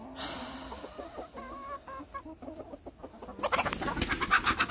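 Backyard chicken flock clucking softly, then, about three and a half seconds in, breaking into loud, rapid alarm clucking as the birds go on alert.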